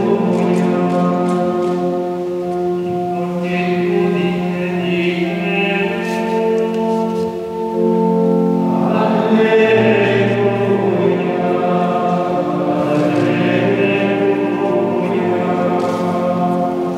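A choir of monks singing a slow liturgical chant for Vespers, several voices holding long notes. A new phrase begins about halfway through.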